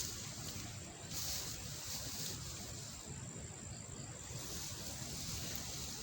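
Wind rumbling on the microphone, with dry rustling of rice stalks being cut and handled by hand; the rustling is strongest for about a second starting about a second in.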